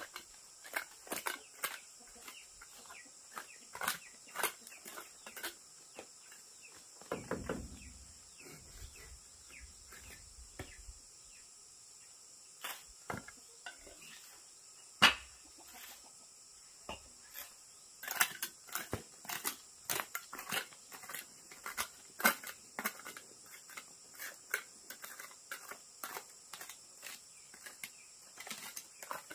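Small hand trowel scraping and chipping into hard, stony earth and bricks knocking as they are handled: short, irregular scrapes and clicks, with one sharp knock about halfway through. A steady high insect buzz runs underneath.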